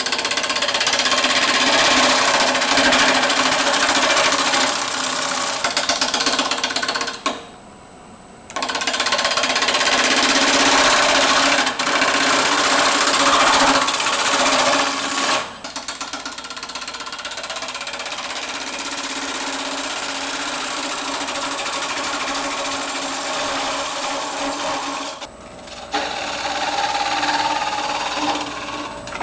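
Turning tool cutting the inside of a spinning hackberry bowl on a wood lathe: a loud, steady scraping hiss of wood being cut. It pauses briefly about seven seconds in and again near the end.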